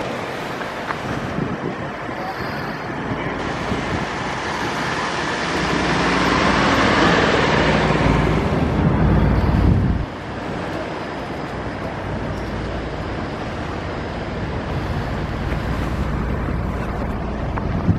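Road traffic noise at a busy intersection: an even rush of passing vehicles, swelling louder for a few seconds in the middle with a deep rumble, then dropping off suddenly about ten seconds in.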